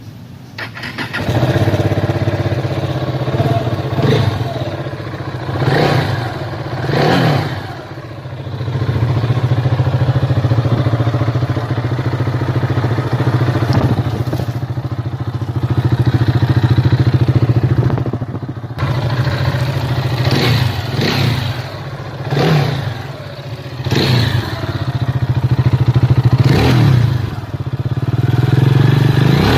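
KTM 390's single-cylinder engine running, blipped up and down repeatedly, with short revs about every one to two seconds in two clusters.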